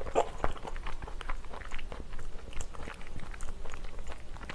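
Close-miked chewing of stir-fried pork intestines (gopchang), sundae and glass noodles: a steady string of small mouth clicks.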